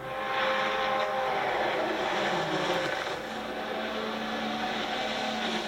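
Rally car engine running hard at high revs, with road and tyre noise.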